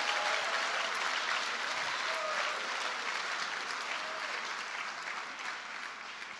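Audience applauding, fading away gradually toward the end.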